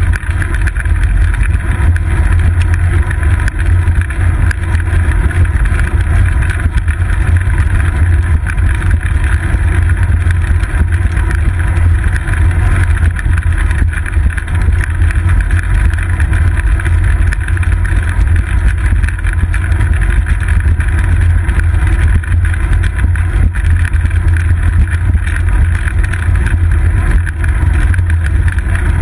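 Bicycle riding over a paved path, heard through a seat-post-mounted GoPro Hero 2: a steady, loud low rumble of road vibration and wind with a hiss above it.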